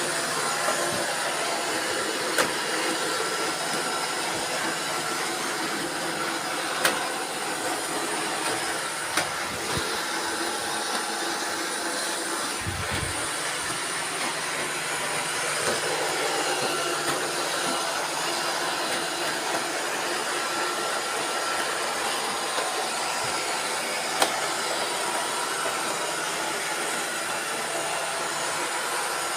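Several robot vacuum cleaners running at once: a steady whir of suction motors and brushes with several steady tones layered together, and a few sharp clicks scattered through.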